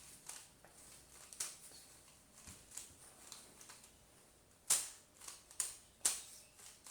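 Plastic Rubik's cube being turned by hand, its layers clacking in a string of sharp clicks, with a few louder snaps about two-thirds of the way in.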